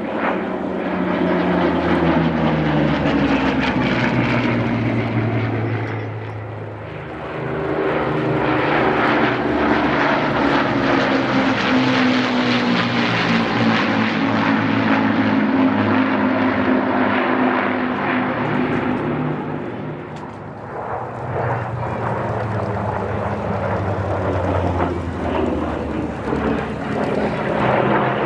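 Piston-engined propeller aircraft flying past in a display, engine note sliding down in pitch as it goes by. It dips quieter twice between passes, then returns loud.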